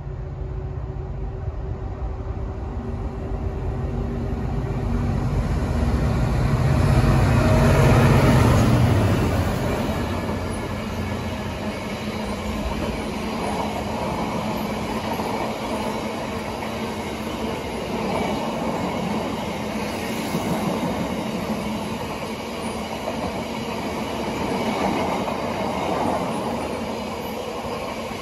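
Freight train of Drax biomass hopper wagons passing close by. The rolling rumble builds to its loudest about eight seconds in, then holds steady as the long string of wagons goes past.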